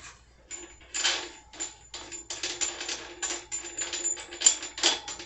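Ratchet wrench clicking in a run of quick strokes, denser from about two seconds in, backing off the motorcycle's rear axle nut.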